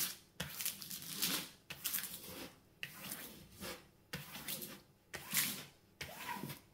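Hand sweeping over the clear plastic protective film of a diamond-painting canvas, pressing it back down onto the sticky canvas: a series of short swishes, several a few seconds apart or closer.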